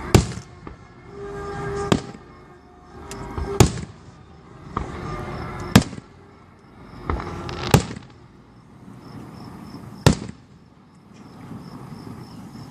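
Fireworks display: aerial shells bursting with loud booms about every two seconds, six in all, with rumble and crackle between them. The last burst comes about ten seconds in.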